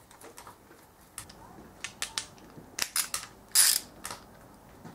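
Metal hand tools being handled: a socket and ratchet wrench clicking and clinking in a string of sharp, separate clicks and knocks, with a short rasp about three and a half seconds in.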